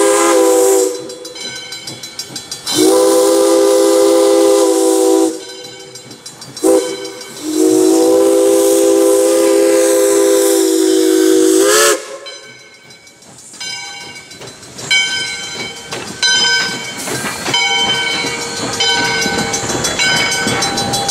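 Steam locomotive's chime whistle sounding the grade-crossing signal of long, long, short, long blasts. The locomotive and its passenger coaches then roll past, steel wheels clicking and rattling over the rails, with a bell ringing steadily.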